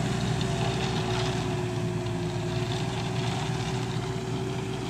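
CarMix self-loading concrete mixer's engine running steadily, a low hum with a steady whine over it.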